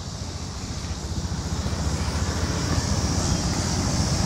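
A car engine running close by with a steady low drone that grows gradually louder.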